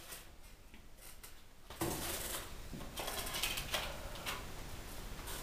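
Faint rustling and small clicks of objects being handled at close range, starting suddenly about two seconds in after a near-quiet moment.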